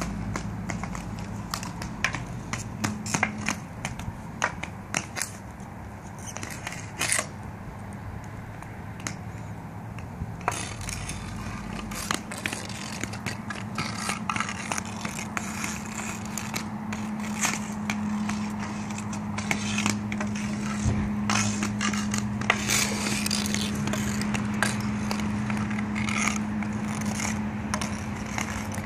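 Hockey stick blade scraping and clacking against a street hockey ball on a concrete driveway, many sharp taps throughout, over the rolling of inline skate wheels on the pavement. A steady low hum runs underneath, stronger in the second half.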